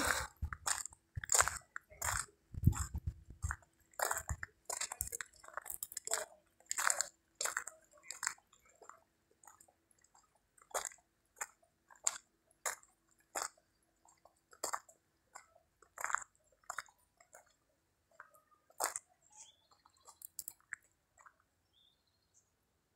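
Footsteps crunching on a gravel path, about two steps a second at first, then sparser and fading near the end, with a faint steady hum under the first half.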